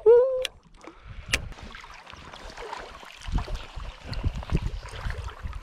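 River ambience: a faint hiss of moving water with irregular low rumbles of wind on the microphone, mostly in the second half, and a single sharp click about a second in.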